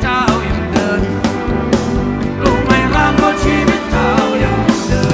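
Live rock band playing loud through a large concert sound system: steady drum beat and bass under a bending lead melody.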